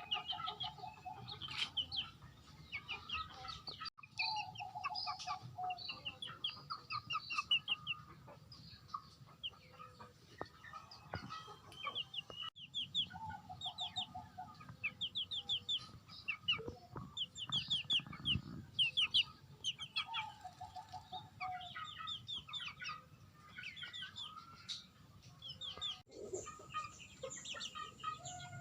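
Chickens clucking and calling, with many short, rapid chirping trills throughout and a pulsing call about a second long that comes back every few seconds.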